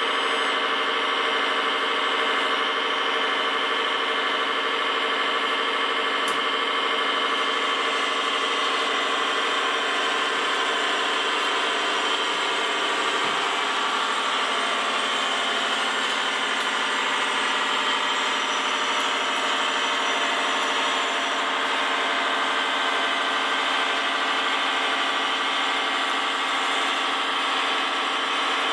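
Radio-controlled construction machine model running steadily: an even, engine-like drone with many layered tones and little deep bass.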